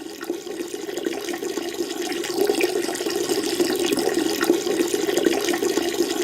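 Sound effect of a stream of urine splashing into toilet-bowl water, steady and continuous, getting a little louder over the first two seconds.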